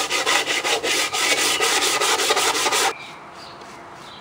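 Sandpaper on a sanding block rubbed in quick, even back-and-forth strokes over a glazed wooden magazine file, smoothing down wood fibres that the first coat of glaze raised. The scraping stops abruptly about three seconds in.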